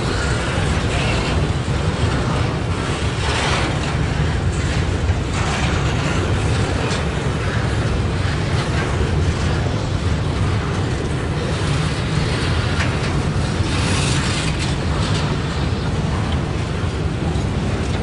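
Double-stack intermodal container train cars rolling past on steel rails: a steady, heavy rumble of wheels and cars, with a few brief, sharper bursts of noise about three and five seconds in and again near fourteen seconds.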